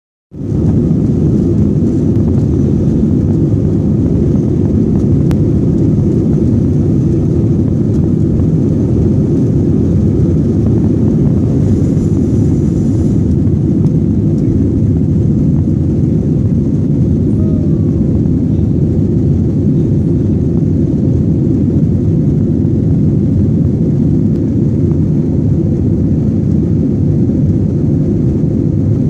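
Airliner cabin during the takeoff roll and climb: the engines at takeoff power make a loud, steady, low roar that holds even throughout.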